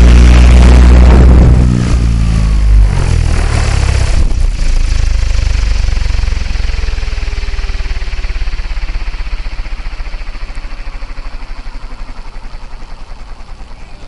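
RC helicopter main rotor heard from the onboard camera during an autorotation landing. A loud blade whir drops about two seconds in, with a brief bump soon after. Then the unpowered rotor winds down after touchdown, its beats slowing and fading away.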